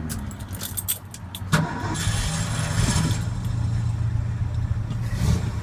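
Ford F-350 engine cranked on the starter about one and a half seconds in after a few light key clicks, catching and settling into a low, steady idle. It is very quiet through a newly fitted heavy-duty semi-truck muffler on headers.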